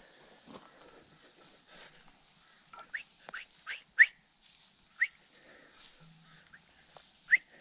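A person whistling short, rising notes as a signal to a fellow hunter not to shoot. Four quick whistles come from about three seconds in, the fourth the loudest, then one more a second later and another near the end.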